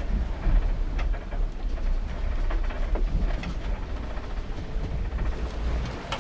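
Steady low rumble of a sailing yacht's hull moving through the sea, heard inside the cabin, with scattered light clicks and knocks. The rumble cuts off just before the end.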